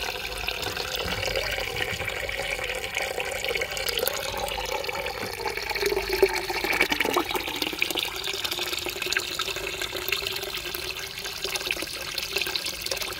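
Steady stream of young Black Doctor red wine pouring from a basket press's spout and splashing into the wine pooled in a plastic basin. It is free-run wine draining off as the press is loaded with the fermented grapes, before any pressing.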